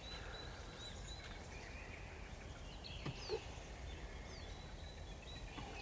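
Faint birdsong of several small birds, short chirps and whistles, over a quiet steady outdoor background, with a couple of soft knocks about three seconds in.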